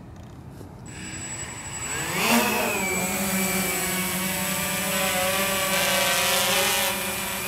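Walkera X350 Pro quadcopter's motors and propellers spinning up for takeoff: a whine rising in pitch and loudness to a peak about two seconds in, then a steady hum as it climbs and flies.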